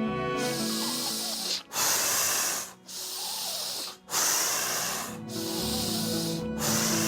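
Fast, forceful breathing for a pranayama exercise: quick breaths in and out with no holding, about six rushes of air in a row, roughly one a second. Background music plays under the breaths.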